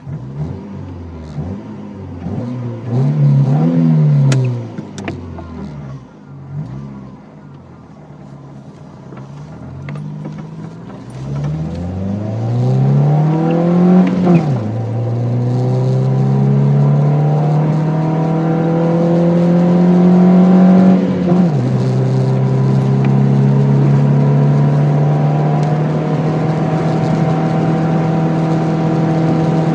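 Mk5 Ford Fiesta 1.3 petrol engine through a Hoffman aftermarket exhaust: revved up and down a few times, settling to a quieter idle, then pulling away under acceleration. The engine pitch climbs and drops sharply twice at upshifts, then keeps climbing steadily in the higher gear.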